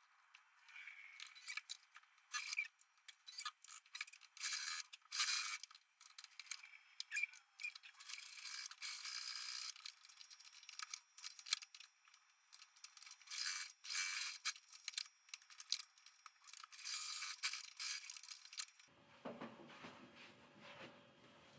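Faint, sped-up sewing machine sewing long basting stitches, running in many short stop-start runs, thin and high-pitched with no low end. Near the end the speed-up stops and only faint room sound is left.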